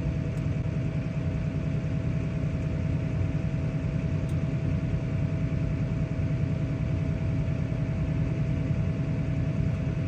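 Tractor diesel engine running steadily, heard from inside the cab, with a constant thin whine above the low rumble.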